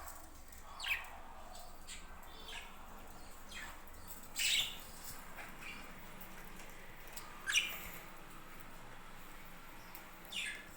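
Budgerigars chirping: four louder short, sharp calls about three seconds apart, with fainter chirps between them.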